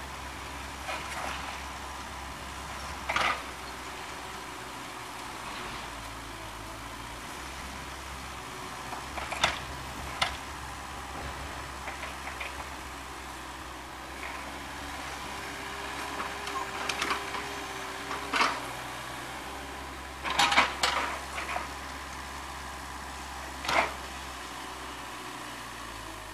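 Intermittent sharp scrapes and crunches of shovels digging into dirt and gravel, over the steady low running of a mini excavator's diesel engine.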